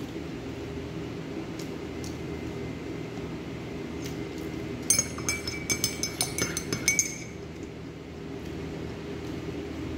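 A quick run of ringing clinks of tableware knocking together for about two seconds, starting about halfway through, over a steady low hum.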